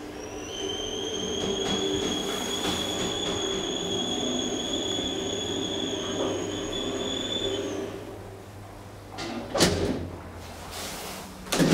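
DEVE hydraulic elevator car travelling in its shaft: a steady high-pitched whine over a low hum for about eight seconds, which stops as the car comes to rest. Two loud knocks follow near the end, about two seconds apart.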